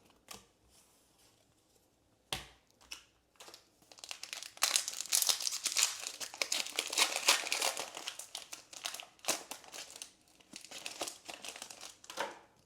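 Foil Pokémon booster pack wrapper being torn open and crinkled, a dense run of crackling for several seconds, after a single knock about two seconds in.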